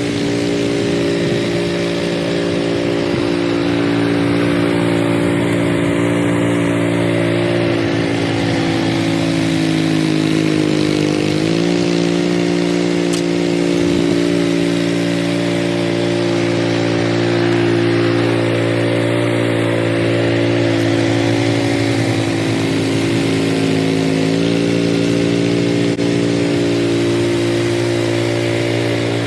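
Cub Cadet 3X 30 HD three-stage snowblower engine running steadily, with its pitch shifting slightly twice, about 11 and 24 seconds in.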